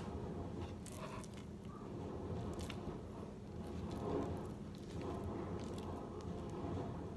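Raw pork being sliced and handled on a cutting board: soft wet cutting and squishing sounds with a few faint taps, over a low steady hum.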